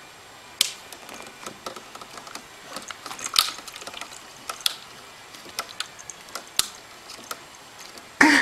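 A cat's paw tapping and scraping at the plastic tank of a room humidifier: irregular light clicks and taps, with a louder, brief knock near the end.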